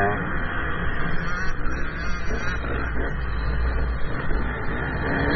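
GasGas 125 two-stroke motocross bike engine revving, its pitch rising and falling repeatedly as the throttle opens and closes.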